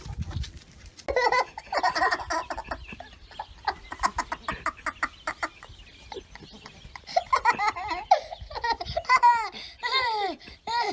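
A person laughing: quick rapid bursts at first, then longer peals that rise and fall in pitch.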